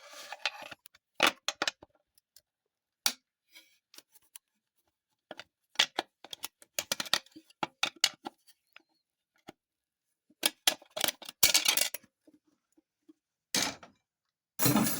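Irregular sharp metal clicks and short scrapes of screwdrivers prying a large snap ring out of its groove inside a TH400 transmission case.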